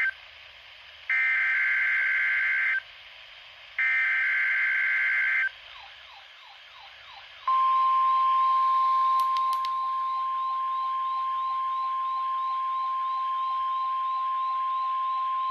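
NOAA Weather Radio Required Weekly Test coming through a Midland HH54VP weather radio. First the SAME header data bursts: short screechy digital bursts, the end of one and then two more. After them the radio's own repeating sweeping alert chirps start, about three a second. About seven and a half seconds in, a loud steady warning alarm tone near 1 kHz comes in and holds under the chirps, with two sharp clicks about nine seconds in.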